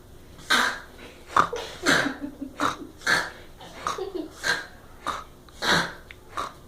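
Snoring that sounds like a pig: a quick run of short, noisy snorting breaths, about two a second, some with a rough grunting tone.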